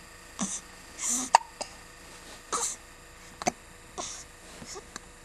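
A run of hiccups, about six short, sharp catches roughly a second apart, each with a breathy hiss.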